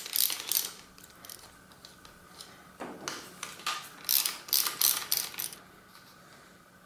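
A ratchet wrench clicking in a few short runs as the pivot bolts holding the V-brake arms to the fork's brake bosses are unscrewed.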